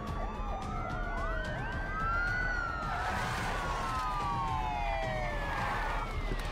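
Several police car sirens wailing together, their pitches rising and falling out of step with each other. From about three seconds in, a hiss of tyres spinning on dusty pavement joins them for a few seconds.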